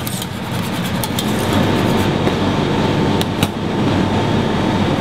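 Steady, loud roar of a commercial kitchen, with a few sharp metallic clinks of a wire whisk against a steel saucepan as a thick white sauce is whisked.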